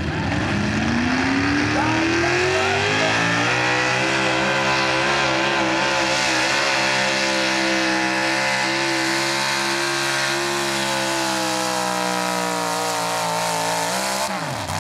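Modified pickup truck engine pulling a weight-transfer sled. It revs up through the first few seconds, holds high, steady revs under load for about ten seconds, then drops off sharply near the end.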